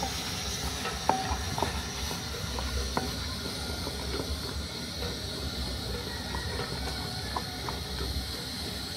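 Rice and millet fufu being stirred and worked in a pot: scattered knocks and scrapes of the stirrer against the pot over a steady hiss and low rumble.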